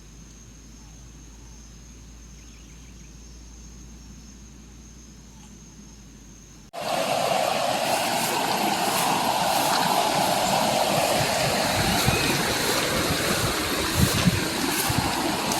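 Faint steady high insect chirring, then about seven seconds in an abrupt cut to loud, steady rushing water, like a stream or small waterfall.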